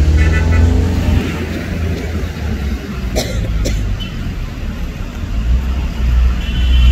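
Outdoor street ambience: a steady low rumble, louder near the start and again near the end, with two sharp clicks about three seconds in.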